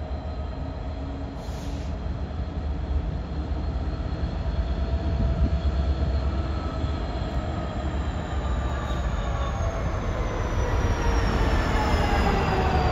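Class 66 diesel-electric locomotive, its EMD two-stroke engine running as it drifts past at low speed, coupled to a Class 70 and running light with no train. The steady low engine rumble grows louder as it nears, and thin squealing tones from the wheel flanges on the curved track slowly drop in pitch in the second half.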